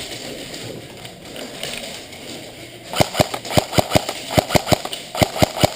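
Airsoft gun firing a quick string of about a dozen sharp shots, starting about halfway through.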